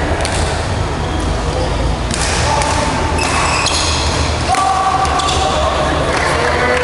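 Badminton play in a large hall: sharp strikes, about one a second and irregular, of rackets hitting the shuttlecock, with voices in the hall and a constant low rumble.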